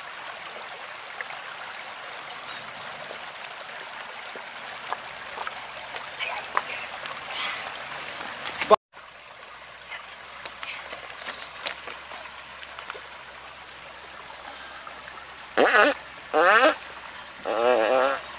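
Steady rush of a shallow stream over stones. Near the end come three loud, wavering straining groans from a man squatting.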